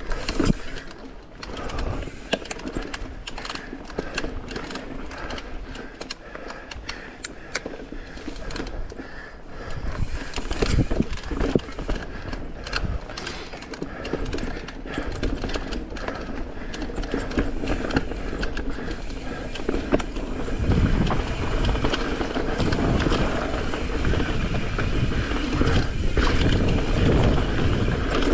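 Mountain bike ridden fast along a dirt trail: tyres rolling over dirt and roots, with the bike rattling and knocking sharply over bumps. Wind on the microphone grows louder in the last third as the speed picks up.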